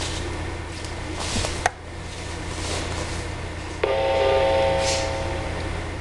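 Weather-alert radio receivers picking up a Required Weekly Test: static hiss over a low hum, a sharp click about a second and a half in, then a steady electronic alert beep for about two seconds from one receiver.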